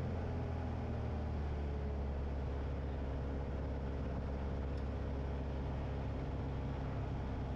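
Piper Arrow's engine and propeller droning steadily in the cockpit on final approach, with a slight change in the low tone about a second in.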